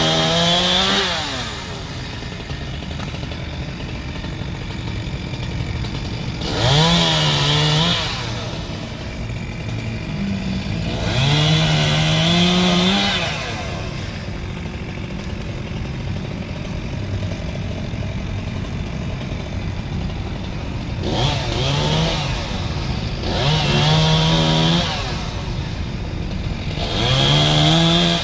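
Two-stroke chainsaw idling and revved up to full throttle in short bursts of a second or two, about six times, with a rising whine each time it speeds up.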